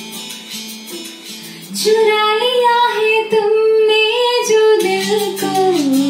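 A woman sings an old Hindi duet over a recorded backing track with guitar. For about the first two seconds the backing plays alone with regular strums, then her voice comes in loudly, holding long notes that slide between pitches.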